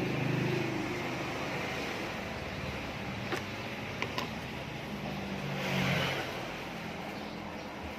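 A motor vehicle's engine running, swelling in level near the start and again about six seconds in, with a few light clicks in between.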